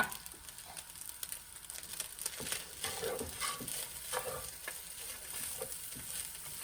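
Vegetable fried rice sizzling in a hot pan while it is stirred, a steady high hiss with irregular scrapes and knocks of the utensil against the pan.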